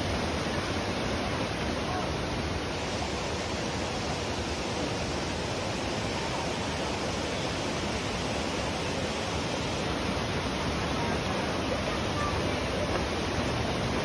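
Creek water rushing over rocks, a steady, even rush with no breaks.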